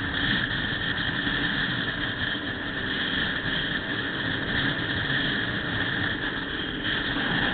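Steady engine and wind noise of a vehicle cruising at expressway speed, heard through the camera's own small microphone.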